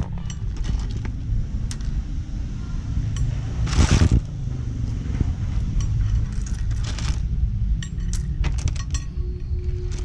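Cockle shells clicking and clinking as raw blood cockles are pried open by hand over a plastic bowl of shells and ice chunks, with a louder rattle of shells about four seconds in. A steady low hum runs underneath.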